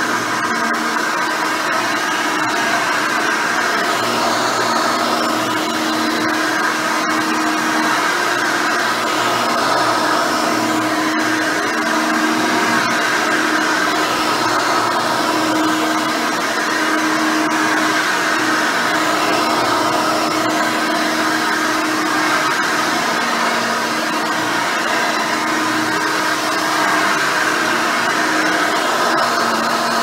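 Hoover Elite 600 upright vacuum cleaner, with a 6-amp motor, nine-blade fan and dual-row bristle brush roll, running steadily as it is pushed over carpet: a loud, even motor whine and airflow hiss with a few held hum tones.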